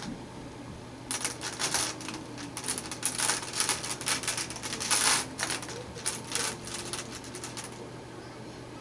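A rapid, irregular run of light clicks and rustles lasting about six seconds, loudest about five seconds in, over a low steady hum.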